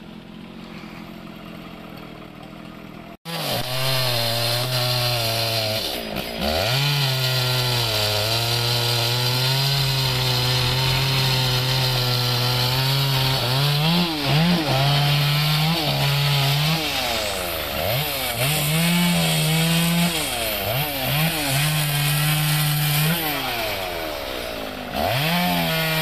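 Two-stroke gasoline chainsaw running while cutting through the limbs of a felled tree. It is faint for the first three seconds, then loud and close, its engine speed dropping and rising again many times as the throttle is eased and squeezed.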